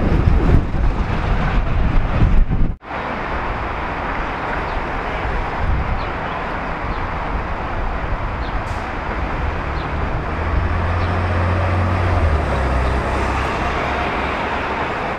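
City street traffic: cars and heavy vehicles passing, with a low engine hum that swells between about ten and thirteen seconds in. The sound drops out briefly about three seconds in.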